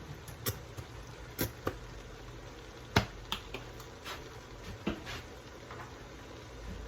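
Scattered sharp clicks and taps of kitchen containers and utensils being handled, the loudest about three seconds in, over a low steady hum.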